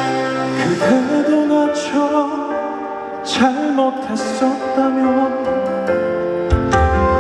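Live ballad music from a band over a PA, with keyboard chords and cymbal accents.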